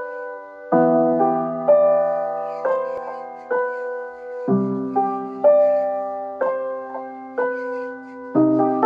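Slow piano music intro: soft chords struck about once a second, each fading away, with deeper bass notes coming in about a second in, around the middle, and again near the end.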